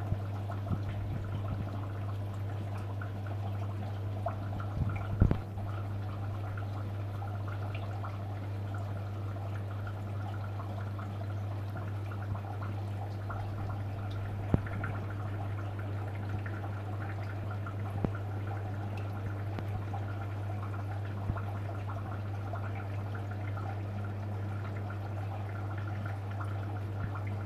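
Aquarium pump and water running: a steady low hum with an even trickling of water throughout, broken by a few sharp clicks, the loudest about five seconds in.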